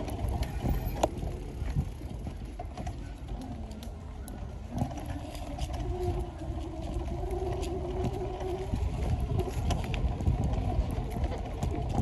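Bicycle riding along a dirt trail: tyres rolling over dirt and fallen leaves, with scattered clicks and rattles from the bike over bumps and wind rumbling on the microphone.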